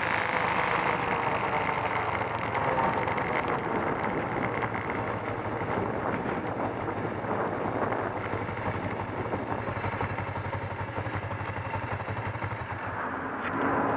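Kawasaki 454 LTD motorcycle's parallel-twin engine dropping in pitch as the bike slows, then running at low revs with a steady fast pulsing beat while it rolls slowly; it gets louder again near the end.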